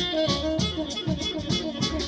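Live jazz on tenor saxophone, double bass and harp: the saxophone carries a sliding melody over a quick run of plucked bass and harp notes.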